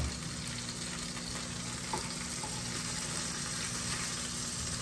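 Whole fish pan-frying with a steady sizzle. A knock comes right at the start and a light click about two seconds in.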